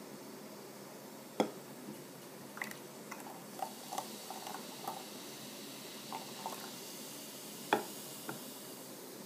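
Irregular small pops and ticks from bubbles bursting at the surface of the frothy hydrogen peroxide and potassium permanganate mixture in a glass beaker, as oxygen comes off the slowing reaction that forms manganese dioxide. Two sharper pops stand out, about a second and a half in and again late on.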